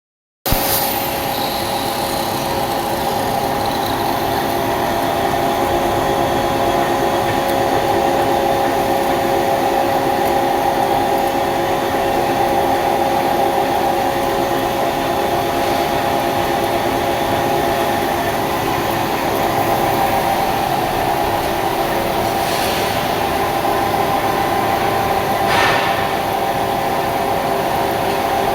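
Dalian 6180Z CNC lathe running, a steady machine hum made of several held tones over a noisy background. It cuts in suddenly after a moment of silence.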